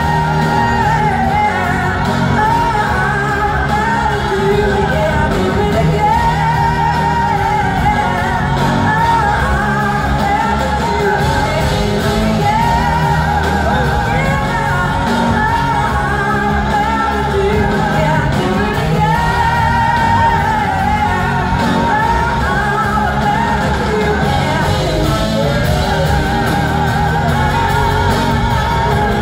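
Large blues-rock band playing live, with drums, electric guitars and a horn section under singing, heard from the audience in a large hall.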